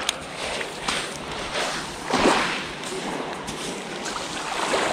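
Swish of a light LRF spinning rod being cast, loudest about two seconds in, with a faint click at the start, over small waves washing on a pebble shore.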